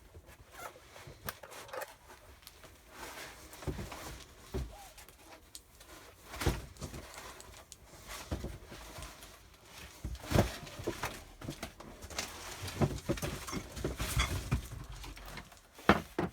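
Irregular clicks, knocks and rustling as 3D printer kit parts are handled and fitted together during assembly, with a few sharper knocks about six and ten seconds in and near the end.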